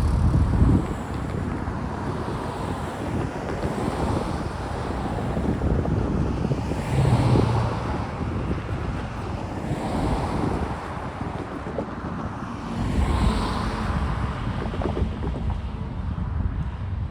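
Freight train of grain hopper cars rolling past with a steady rumble, swelling about every three seconds, and wind buffeting the microphone.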